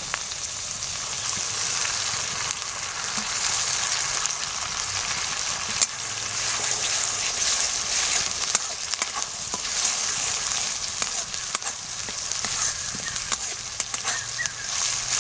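Masala paste sizzling in hot oil in a metal kadai while a flat metal spatula stirs and scrapes it round the pan, with scattered sharp clicks of the spatula against the metal.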